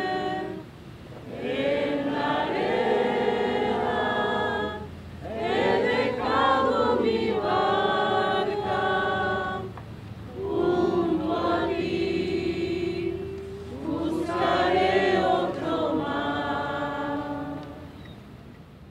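A group of people singing together in slow phrases of long held notes, with short breaths between phrases. No instrument is heard. The singing dies away near the end.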